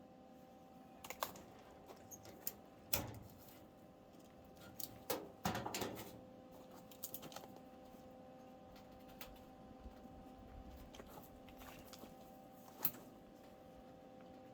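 Scattered light clinks and knocks of tools and metal parts being handled during car body work, a handful of separate taps with a short cluster about five to six seconds in, over a faint steady hum.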